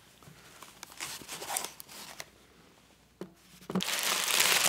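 Soft rustling of a cloth dust bag, then loud crinkling and rustling near the end as packing tissue paper is pulled out from under the straps of a pair of sandals.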